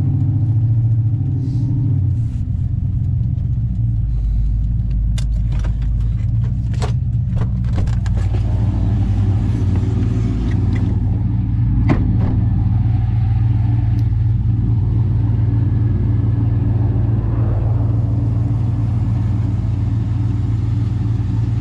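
Vehicle engine and road noise heard from inside the cab as the vehicle pulls over to the side: a steady low hum, with a few sharp clicks and knocks about a quarter of the way in and again past the middle.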